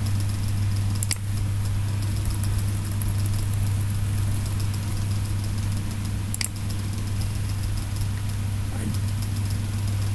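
Steady low electrical hum with hiss from the recording setup, broken by two sharp mouse clicks: one about a second in and another after about six and a half seconds.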